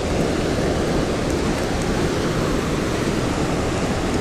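Steady rush of a river running high, spilling over a low weir.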